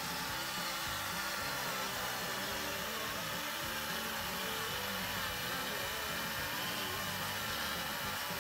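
Home-built robot lawnmower running on grass: its geared electric blade motor spins a cutting disc fitted with Stanley knife blades and whirs steadily as it cuts.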